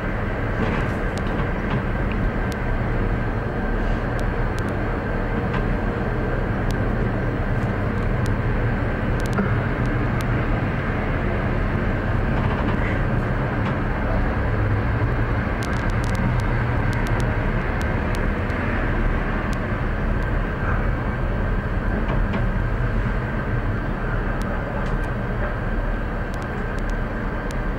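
Steady low rumble and hiss inside a moving gondola cable-car cabin as it runs along the line, with a faint steady whine and a few light ticks.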